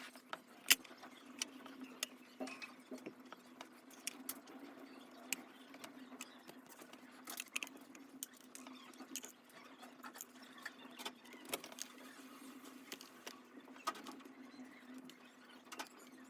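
Irregular small clicks, taps and scrapes of mechanical keyboard parts (plate, screws, standoffs, wooden case) being handled during assembly, over a steady low hum.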